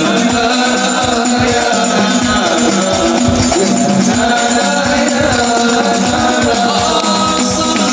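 Sholawat devotional song sung by a group of voices in unison over a steady beat of frame drums and jingles, in the hadrah/rebana style.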